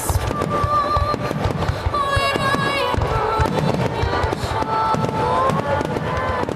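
Fireworks finale: shells bursting and crackling in quick, dense succession, over music playing with held notes and melody.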